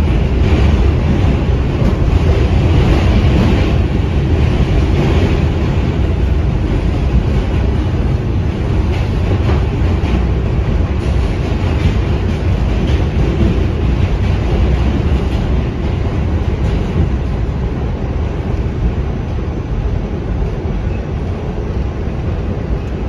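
Inside a New York City subway car on the A train, running along the track: a loud, steady noise of wheels and running gear that eases off gradually toward the end.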